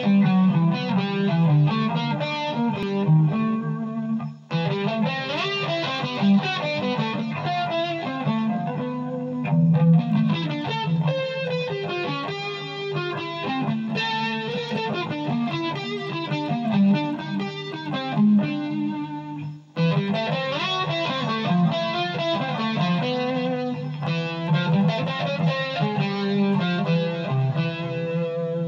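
Electric guitar played through an overdrive effect, a continuous run of distorted notes and phrases. The playing breaks off briefly twice, about four seconds in and again around twenty seconds.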